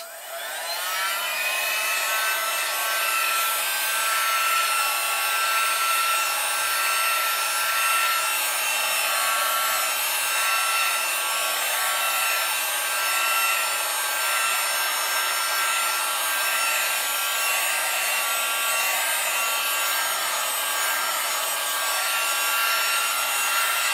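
Handheld electric heat gun switched on, its fan spinning up with a rising whine over the first second or so, then running steadily with a blowing hiss and a held whine.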